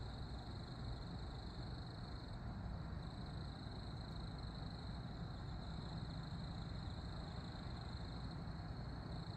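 Steady outdoor background noise: a low rumble with a thin, steady high-pitched tone running over it.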